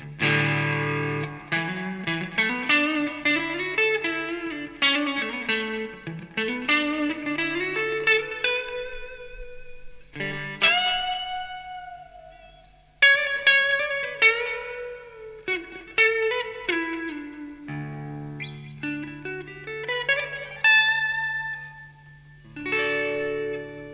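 PRS S2 Studio electric guitar being played: chords struck, then single-note lines with string bends sliding the pitch up and down. The chords come back about 18 and 22 seconds in.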